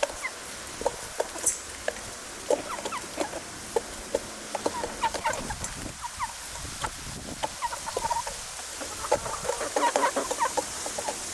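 Backyard hens clucking: many short, soft calls scattered throughout, getting busier near the end.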